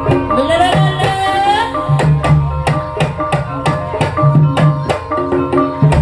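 Javanese ebeg accompaniment ensemble playing: a fast, even rhythm of kendang hand-drum strokes over repeating tuned-percussion notes. A singer's wavering, gliding phrase sounds over it in the first two seconds.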